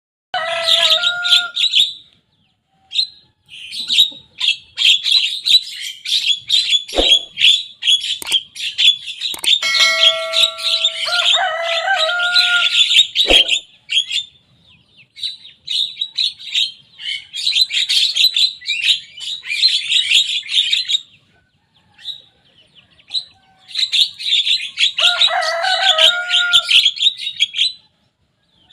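Young Javan myna singing in full voice: bursts of rapid, scratchy chattering mixed with a few clear held whistles, in several long phrases with short pauses between them.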